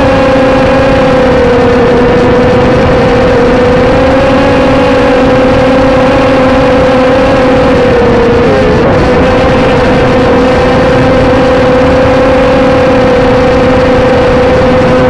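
HT803C micro drone's small electric motors and propellers running in flight, a loud steady whine picked up by the drone's own onboard camcorder microphone. The pitch holds nearly level, with a brief dip and wobble a little past the middle.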